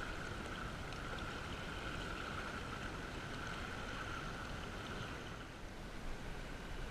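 River water rushing over a shallow riffle: a steady, even rush that eases a little near the end.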